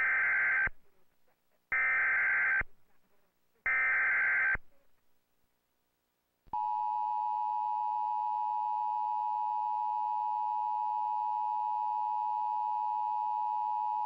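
Emergency Alert System activation tones for a tornado warning: three short, harsh digital data bursts of the SAME header about two seconds apart, then a pause, then the steady two-tone attention signal starting about six and a half seconds in.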